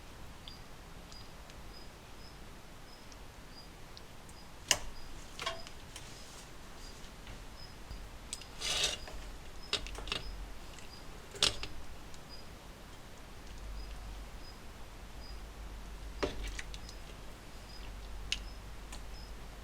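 Scattered clicks and knocks of small objects being handled, the sharpest about five and eleven seconds in, with a short rustling patch near nine seconds. Beneath them a faint steady hiss and a soft high tick repeating about twice a second.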